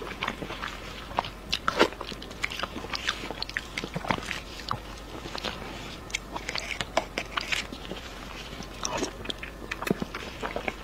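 Close-miked eating sounds of a person biting and chewing sauce-glazed braised meat, with many short, irregular wet clicks and smacks.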